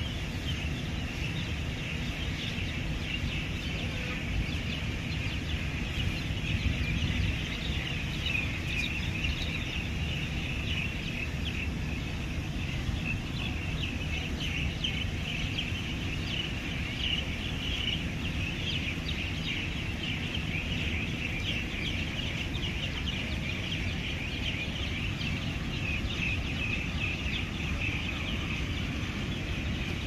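Many birds chattering and chirping at once in a dense, unbroken chorus, over a steady low rumble.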